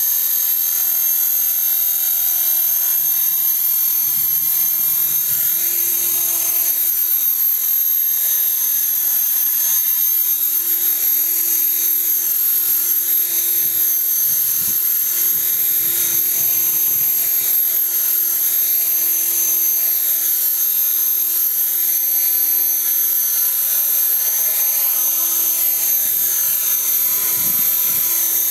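Electric T-Rex 450 Pro RC helicopter with a five-bladed main rotor hovering low on a test hop: a steady high-pitched motor whine over the whir of the rotor blades.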